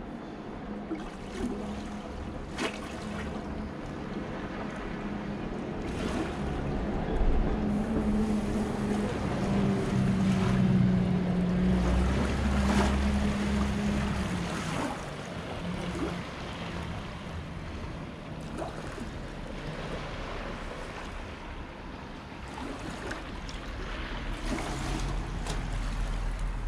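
A low engine hum that grows louder toward the middle and then fades, over wind and the wash of the sea, with a few faint knocks.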